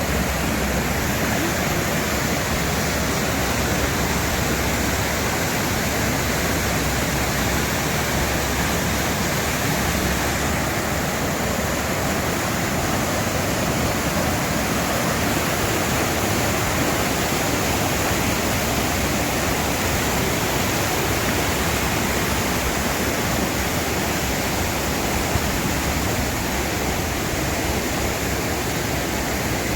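Rushing water of river rapids, loud and steady without a break.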